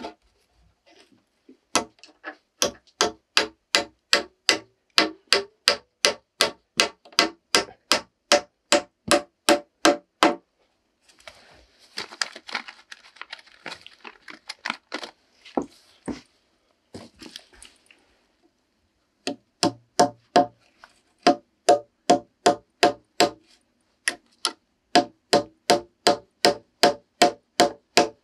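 A hammer driving nails into wooden floor boards, about three blows a second in long steady runs, each blow with a short ring. About ten seconds in, the hammering stops for a few seconds of rustling, then starts again in two more runs.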